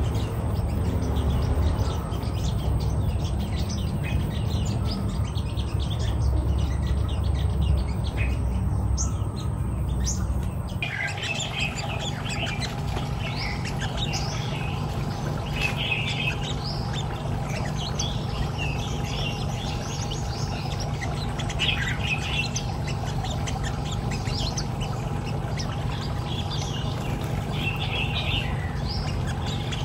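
Olive-backed sunbirds chirping at a trap cage in quick high calls. The calls come thicker after a change about eleven seconds in, over a steady low rumble.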